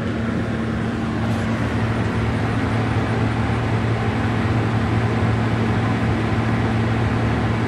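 30-watt solar-powered exhaust fan with a brushless DC motor running steadily, blowing hot air out of a greenhouse: a constant low hum over an even rush of air.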